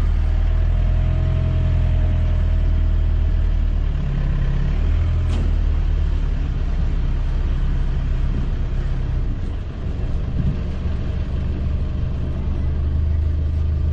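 Songthaew pickup-truck taxi driving along a road: a steady low engine rumble with road noise.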